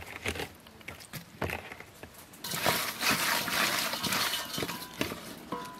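Wet hands rubbing and squeezing a whole raw chicken in an aluminium bowl: sticky, wet squelching with scattered small slaps. About halfway through it turns into a denser, continuous wet rubbing.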